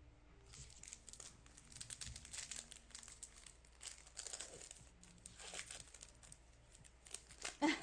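Crinkling of a foil trading-card pack wrapper being handled and torn open, a run of short, dry crackles.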